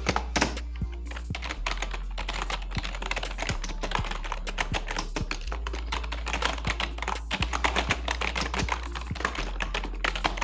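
Fast, continuous typing on an Amkette EvoFox Fireblade membrane gaming keyboard: dense, irregular key clicks from its raised keys, with a slightly mechanical-style clickiness. Background music plays underneath.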